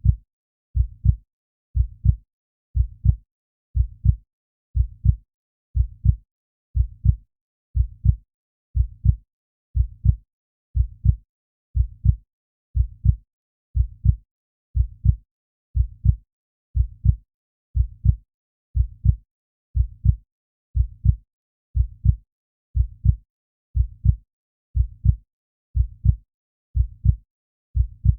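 A calm, steady heartbeat: a low double lub-dub thump about once a second, with silence between beats.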